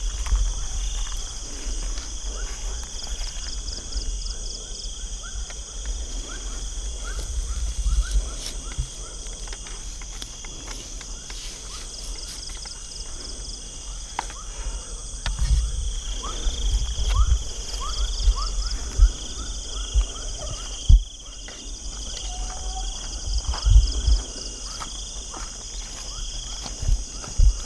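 Night insects, such as crickets, trilling steadily in several high-pitched layers, some in even pulsing chirps. Low thumps and rustling from handling close by come through now and then.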